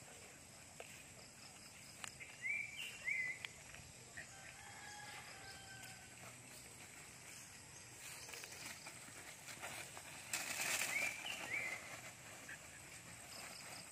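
Quiet outdoor ambience with a few short, high bird chirps, and a brief rustling burst about ten seconds in, like movement through dry leaves and grass.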